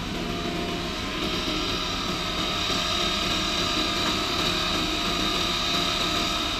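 Steady mechanical running with a high whine that comes up about a second in: a truck-stop diesel pump starting to pump fuel into a semi-truck's tank.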